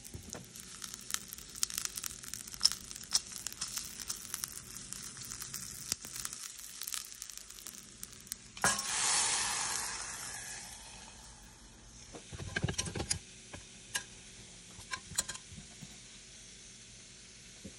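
A tempering of mustard seeds, dals and curry leaves sizzling and crackling in hot oil in a small pan. About halfway through comes a sudden louder hiss that fades over a couple of seconds, followed by a few low knocks and scattered pops.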